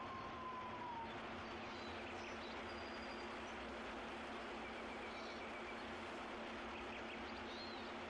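Steady rushing wind with a few faint, short bird chirps and a brief quick trill around the middle. A long steady whistle-like tone at the start drops in pitch and fades about a second in.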